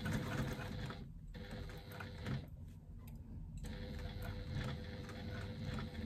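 Electric sewing machine stitching a faux leather strap connector onto a bag panel, running in short runs. It stops briefly about a second in and again for about a second from two and a half seconds in.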